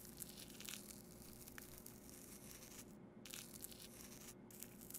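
Faint crunching, tearing sound effect of a corpse being cut open at autopsy, coming in several stretches over a steady low hum.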